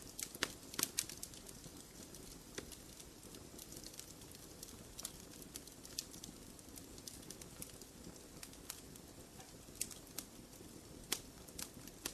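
Wood fire crackling in a fireplace: irregular sharp pops and snaps over a soft, steady low hiss of burning, with a cluster of louder pops about a second in and again near the end.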